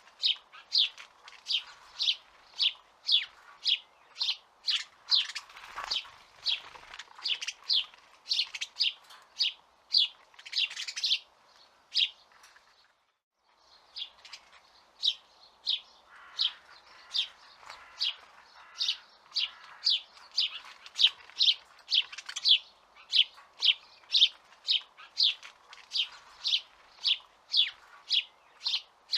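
House sparrow chirping over and over, about three short, sharp chirps a second, with a pause of about a second midway.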